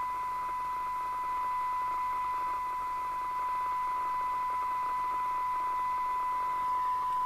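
A steady single-pitch test tone with a faint hiss underneath. It is the signal generator's tone, received by a Kernow Beta 1100 FM CB radio and played through the set's own loudspeaker.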